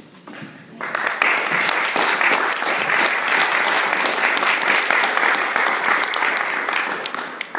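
Audience applauding: the clapping starts about a second in, holds steady, and tapers off near the end.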